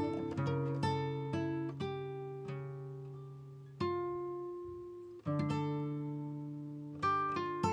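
Background music: an acoustic guitar picking notes and chords, each one struck and left to ring and fade.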